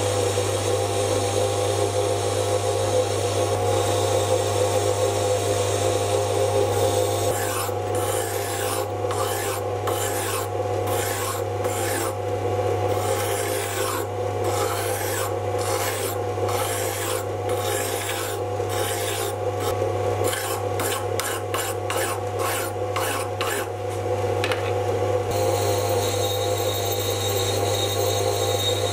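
Mini lathe running with a steady motor hum. From about seven seconds in until near the end, a hand file is stroked against the spinning steel workpiece in quick repeated strokes; before and after that, a carbide tool is turning the steel.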